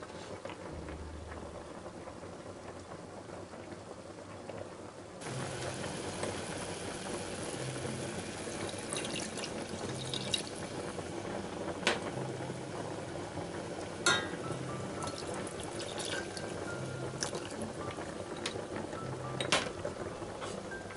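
Red wine and beef broth being poured into a stainless-steel saucepan of pan juices: a steady splashing pour, with a few sharp clinks. Quiet background music with a soft low pulse runs underneath.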